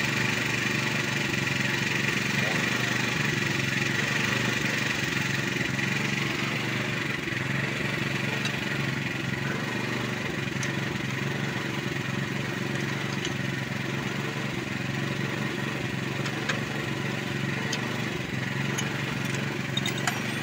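Steady drone of a running engine, even in level throughout, with a few faint light clicks scattered through the second half.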